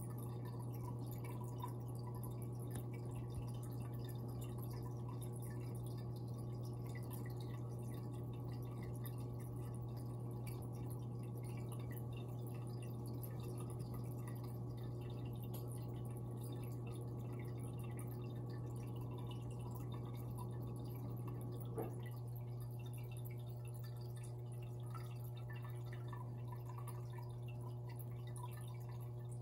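Aquarium pump humming steadily, with water trickling and dripping in the tank. A single faint click about 22 seconds in.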